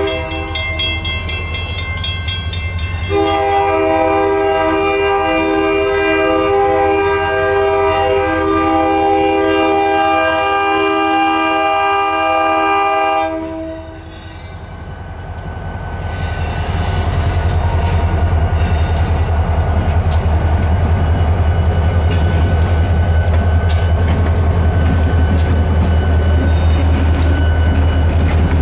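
Freight locomotive horn, an RJ Corman SD40T-2 'snoot nose' tunnel motor, blowing for a grade crossing: a short blast at the start, then a long held chord of about ten seconds that stops about 13 seconds in. From about 16 seconds a loud, steady diesel rumble with the clicking of wheels on rail builds as the locomotive and freight cars pass close by.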